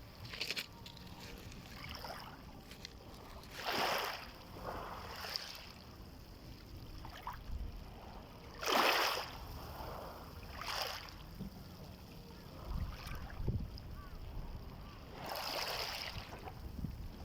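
Small sea waves washing and splashing against the shore, about five separate washes a few seconds apart, the loudest about halfway through, over a low steady rumble.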